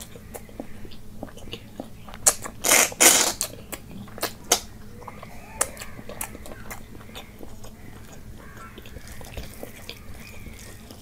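Close-miked eating sounds from a person eating curry and rice by hand: wet chewing, lip smacks and small clicks. There is a loud burst of mouth noise about three seconds in, and two sharper ones a second or so later.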